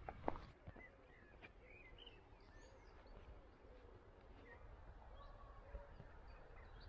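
Near silence: quiet rural ambience with faint bird calls, and a brief click just after the start.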